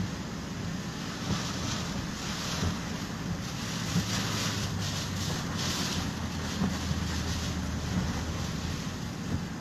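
Steady rush of heavy rain and flood water heard inside a moving vehicle's cabin, over a low engine and road rumble, with a light knock about every second and a half as the windshield wiper sweeps.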